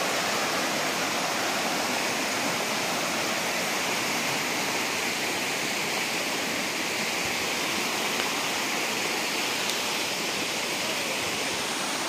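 Water rushing over a low rocky cascade in a forest stream, a steady, even rush.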